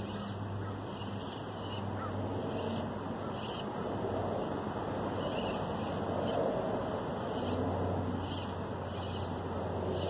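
Axial SCX24 Deadbolt micro crawler's small 88T electric motor and worm-gear axles whirring faintly as it crawls up a pile of rocks, over a steady outdoor background noise with short high chirps every second or so.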